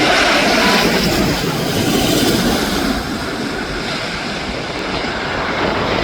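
Jet roar from a British Airways Airbus A380's engines, a steady rushing noise that eases a little about halfway through and then builds again.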